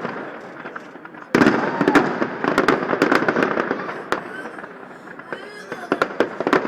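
Fireworks display finale: a rapid run of shell bursts and crackling bangs. A much louder volley breaks out about a second and a half in.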